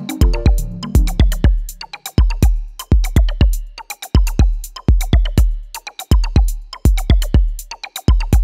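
Electronic background music: a drum-machine beat of deep bass kicks and sharp clicky hits, repeating about once a second. A few pitched notes fade out in the first second.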